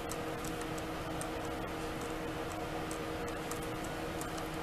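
Steady low room hum with light, regular high ticking about twice a second.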